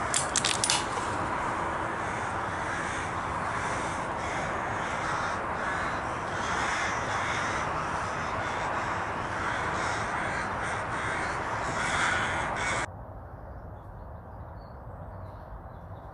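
Corvids calling with harsh, caw-like calls over a steady rush of wind noise. The sound drops abruptly to a quieter, duller hush about thirteen seconds in.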